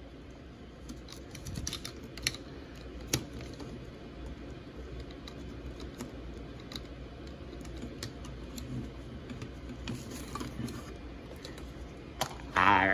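Hard plastic toy parts of a Megazord action figure clicking and knocking as they are handled and fitted together, with scattered separate clicks.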